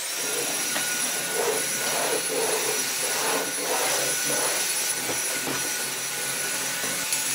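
Cordless stick vacuum switching on and running with a steady high whine, sucking up cut hair from the floor.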